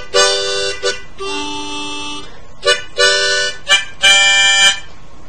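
Small harmonica played in a short phrase: four held chords, each about half a second to a second long, with quick short notes between them.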